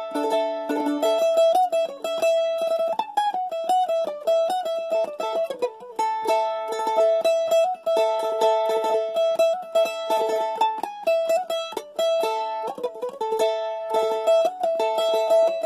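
Solo acoustic A-style mandolin played with a pick: a melody of quickly picked notes, many held notes sounded by rapidly repeated strokes.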